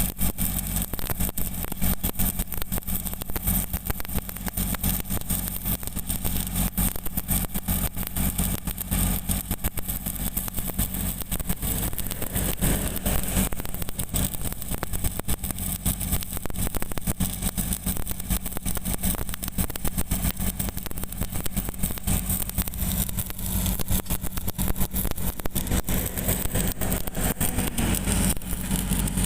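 Stick (SMAW) welding arc crackling steadily on a steel pipe joint, with an engine running at a steady idle underneath.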